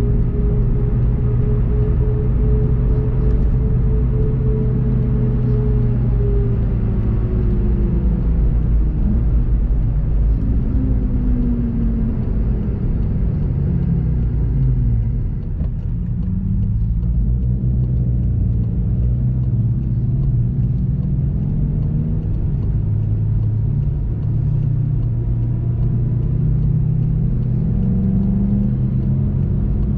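VW Golf 7.5 GTI TCR's turbocharged 2.0-litre four-cylinder engine heard from inside the cabin as the car slows from about 90 to 40 km/h. The engine note drops in steps during the first half, holds steady, and starts to rise again near the end.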